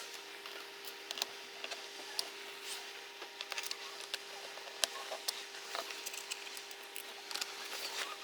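Irregular small clicks and taps of a plastic laptop bottom cover being handled and fitted back onto a Lenovo IdeaPad 320, over a faint steady hum.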